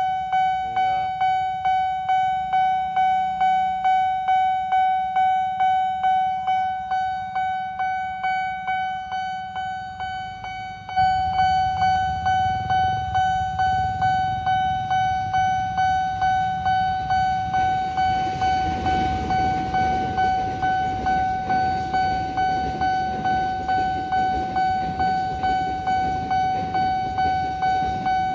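Railway level-crossing warning bell ringing a steady, rapid single-tone ding-ding, about two strikes a second. From about two-thirds of the way through, the rumble of an electric commuter train builds under it as the train approaches and passes over the crossing.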